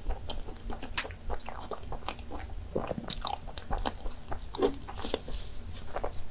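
Mouth sounds of chewing a cream-filled donut: soft bites and wet, irregular chewing clicks.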